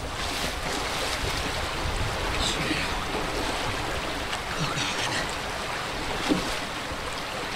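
Fast-flowing creek rushing steadily.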